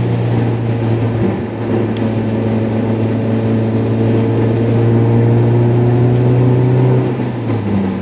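Car engine and wet-road tyre noise heard from inside the cabin while driving: a steady engine drone whose pitch steps up near the end.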